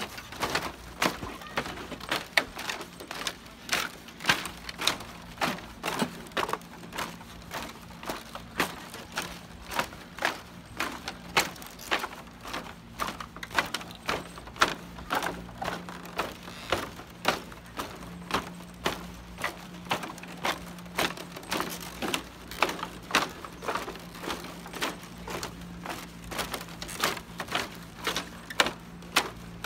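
Footsteps on a woven bamboo footbridge: steady walking at about two steps a second, each step knocking on the bamboo decking.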